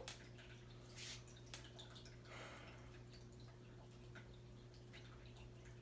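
Near silence: room tone with a low steady hum and a few faint clicks and taps in the first half.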